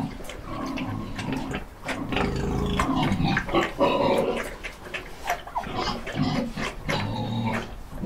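Several domestic pigs grunting, short irregular grunts following one another closely.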